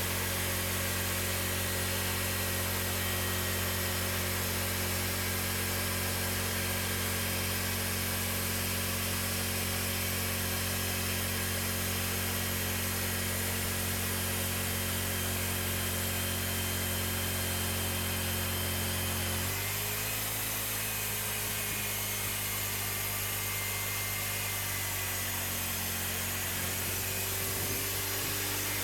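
Cooks 3238 hydraulic bandsaw mill running steadily while sawing a slab from a cherry log: an engine hum under the hiss of the band blade. About two-thirds of the way through, the engine's note shifts abruptly.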